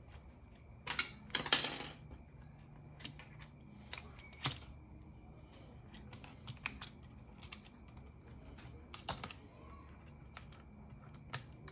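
Scattered small sharp clicks and taps at uneven intervals, with a brief rustling scrape about a second in, over a faint steady high-pitched whine.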